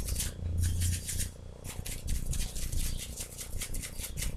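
A paintbrush dabbing watery acrylic paint onto a small painted figure: a quick, irregular run of soft dry taps and scratches, several a second, as the bristles stipple paint into its crevices.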